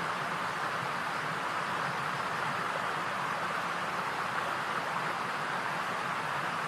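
Steady, even hiss with no animal calls, hoofbeats or other distinct sounds.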